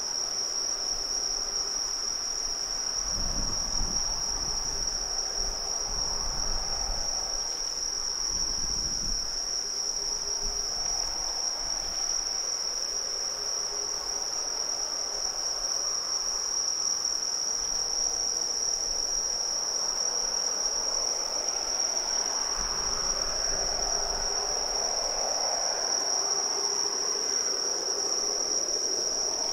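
Steady, unbroken high-pitched trilling of insects. A faint low rumble comes and goes underneath, strongest about three to nine seconds in.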